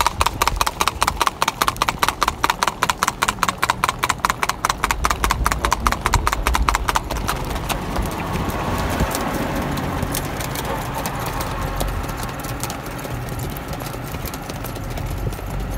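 Horse's hooves clip-clopping in a fast, even rhythm, crisp and sharp on the road surface. After about seven seconds the hoofbeats soften and fade under a steady rushing noise as the horse moves onto the dirt shoulder.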